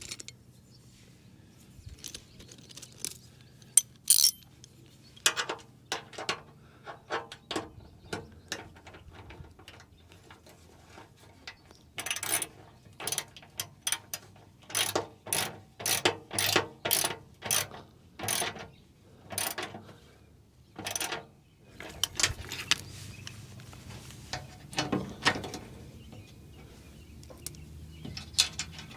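Hand ratchet wrench clicking as bolts are driven in, in short scattered bursts at first, then a steady run of about a dozen strokes, roughly one and a half a second, in the middle.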